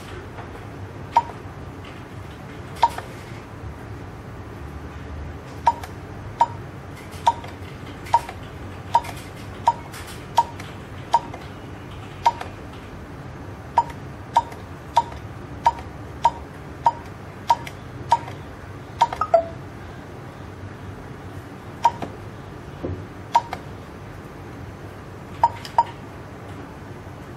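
Fingerprint access-control terminal's keypad beeping once for each key press: short, high beeps at one pitch. Two even runs of eight quick beeps, a little over one a second, are an eight-character password being typed and then typed again to confirm it, with single and paired beeps for menu and OK presses between them.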